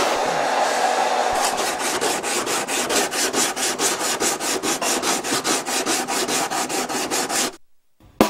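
Sandpaper rubbed by hand back and forth over the wooden hull of a large model flying boat, in quick even strokes of about five a second, after a steady rushing hiss from a heat gun in the first second or so; the sanding cuts off suddenly near the end.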